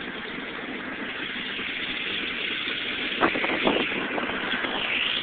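Steady engine noise of a Cessna 310R's twin piston engines, heard inside the cabin, rising a little in level, with a couple of sharp knocks a little past three seconds in.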